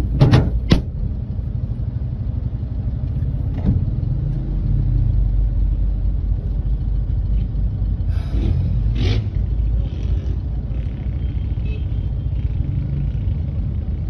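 Steady low rumble of a car running in traffic, heard from inside the cabin. Two sharp knocks come right at the start, and a weaker one about four seconds in.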